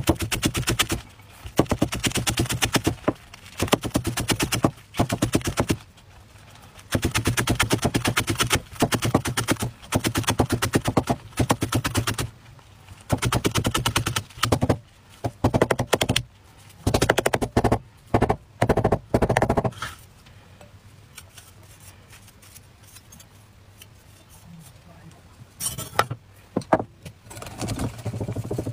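Rapid chopping with a Chinese cleaver on a thick wooden chopping block: the blade knocks on the board many times a second in runs of one to two seconds, with short pauses between them, for about the first twenty seconds. After a lull there are a few separate knocks, and near the end batter is stirred in a glass bowl.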